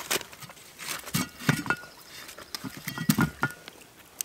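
Clanks and knocks of a cast-iron Dutch oven and its wire bail handle against a metal fire-pit grate as the pot is set down. There are a few short ringing metal pings, in two clusters, about a second and a half in and around three seconds in.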